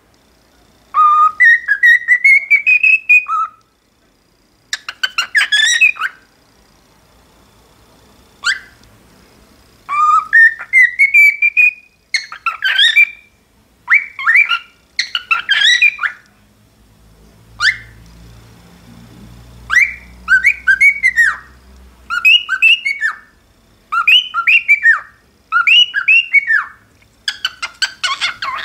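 Cockatiel singing: a series of whistled phrases, the first ones long rising glides, then shorter warbled phrases repeated about every two seconds.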